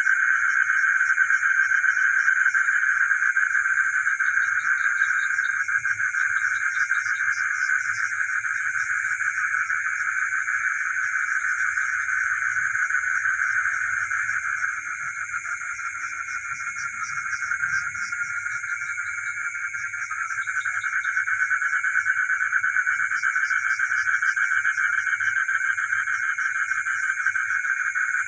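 Dense chorus of many frogs calling together in a continuous trilling mass, with a steady high-pitched shrill layered above it. The chorus eases a little about halfway through, then swells again.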